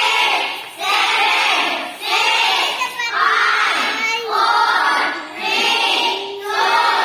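A group of children singing together, in short phrases of about a second each.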